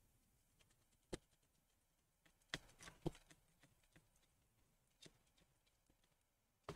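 Near silence broken by about five faint, scattered clicks and taps from small parts and tools being handled inside an opened laptop.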